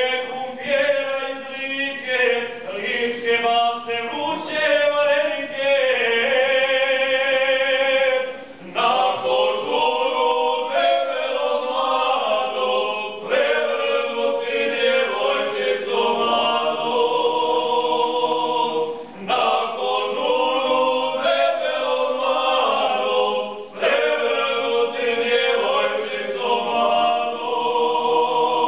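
Small group of men singing an unaccompanied folk song together in traditional style, in sung phrases of a few seconds with short breaks for breath between them.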